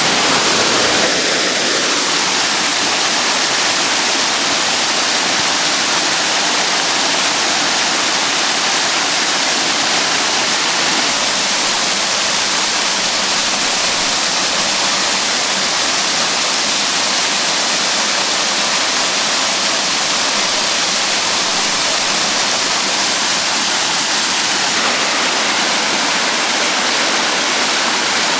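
Small waterfall in spate after heavy rain, pouring steadily into a pool: a loud, even rush of falling water.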